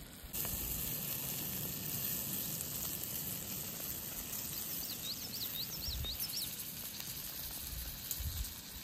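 Brook trout frying in butter in a pan, a steady sizzle that starts suddenly just after the beginning. About halfway through, a bird gives a quick run of high chirps over it.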